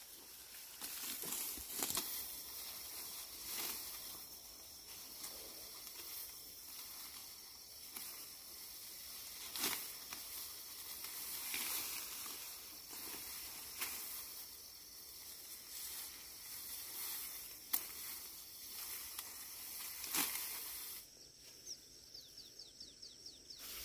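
Steady hissing rustle with scattered crackles and snaps. About three seconds before the end it drops quieter, and a quick run of high ticks or chirps is heard.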